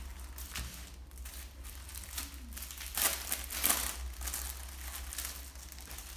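Plastic packaging bags crinkling and rustling as they are handled and torn open, with the loudest crackles about three seconds in.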